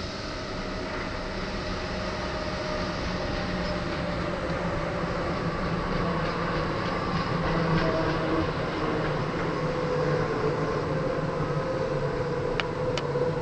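BR 422 S-Bahn electric multiple unit arriving at a station: a steady hum of its running gear and wheels on the rails with several held tones, slowly growing louder. Two sharp clicks come near the end.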